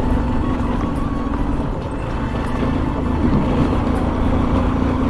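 Honda CB Shine's single-cylinder 125 cc four-stroke engine running at a steady pitch as the motorcycle is ridden.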